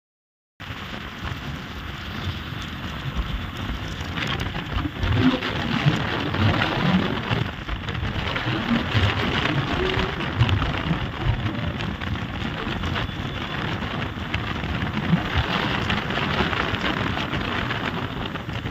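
Wind buffeting the microphone from a moving vehicle, with a low, uneven rumble of the vehicle and road. It starts abruptly about half a second in.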